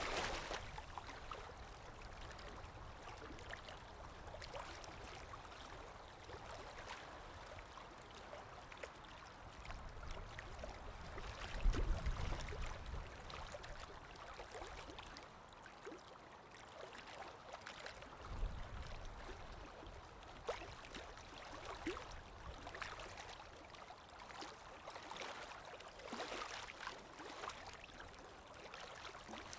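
Water sound effect of a stream trickling and gurgling, with a brief low rumble about twelve seconds in and again about eighteen seconds in.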